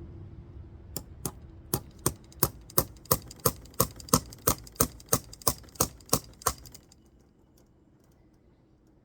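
A run of sharp, evenly spaced taps during fence-wire repair, about three a second, starting about a second in and stopping near seven seconds.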